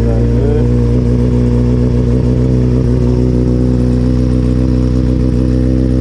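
Sport motorcycle engine idling steadily, with a brief wavering in pitch right at the start.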